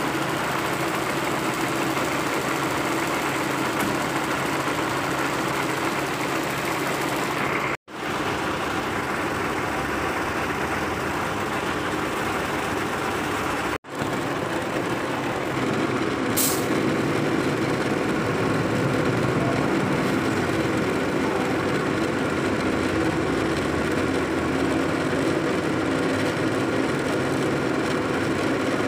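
Heavy truck engine running steadily at close range, a tow truck's engine kept running while its recovery gear is worked. The sound cuts out briefly twice.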